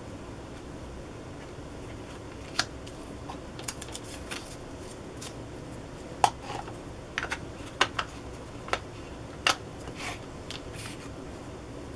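About a dozen separate sharp clicks and taps from hands handling paper pieces and small craft tools on a tabletop, the loudest about six seconds in.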